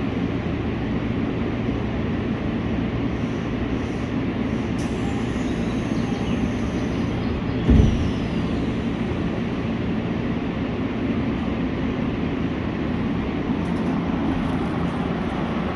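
Odakyu 3000 series electric train running with a steady rumble, a faint high whine falling in pitch for a few seconds, and one short thump near the middle.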